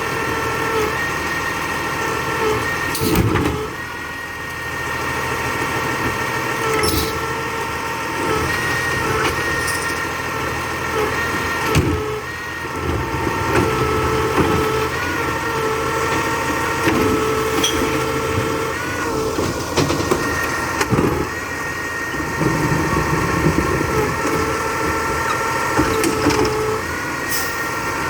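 Labrie Expert 2000 recycling truck running, with a steady multi-tone whine and scattered clanks and knocks.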